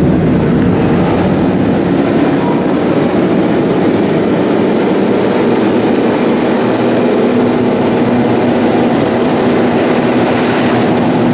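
Motorcycle engine running steadily while the bike is ridden at cruising pace, heard from the riding bike with wind and road noise over it.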